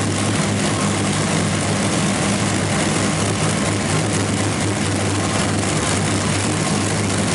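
Twin Rolls-Royce Griffon V12 aero engines of a modified pulling tractor running steadily at idle, a deep even drone with no revving.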